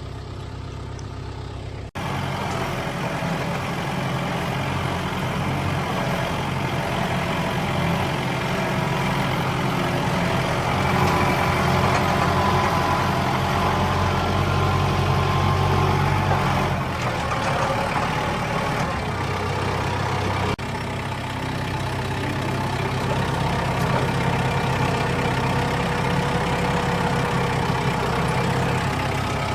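Farm tractor engine running steadily under load while carrying a round hay bale, a little louder in the middle stretch, with two abrupt jumps in the sound.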